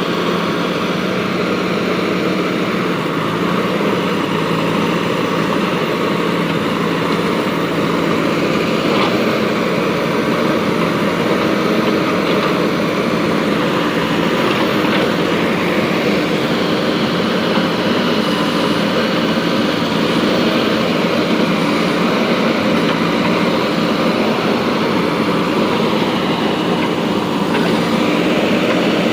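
JCB 3DX backhoe loader's diesel engine running steadily while the machine digs, an unbroken drone with only small shifts in pitch.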